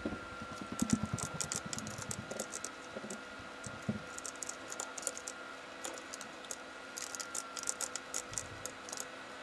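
Irregular clicking of a computer keyboard and mouse, with scattered taps throughout, as bones are rotated and moved in Blender by hotkey and click. A faint steady high whine sits underneath.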